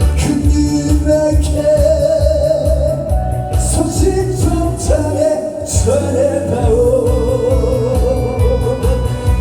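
A song with a singer's long held notes, wavering with vibrato, over a steady drum and bass backing track. The bass drops out briefly just past the middle.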